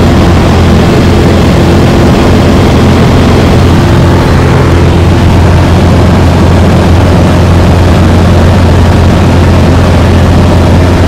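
Engine and propeller of a high-wing light aircraft in cruise flight, heard loud and steady from inside the cabin: a constant low drone under a rush of air.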